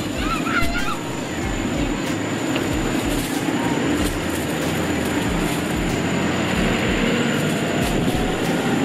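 Steady motor vehicle engine and road noise, swelling slowly over the middle of the clip as if a vehicle draws near.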